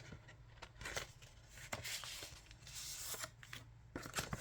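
Paper and plastic album inserts being handled: rustling with a few light taps and clicks.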